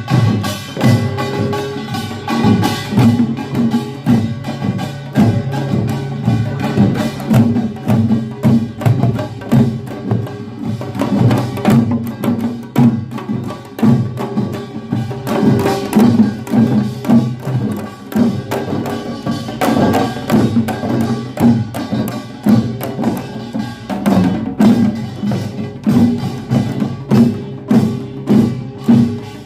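Korean pungmul farmers' band playing a fast, driving rhythm: a dense stream of sharp gong and drum strikes over ringing gong tones.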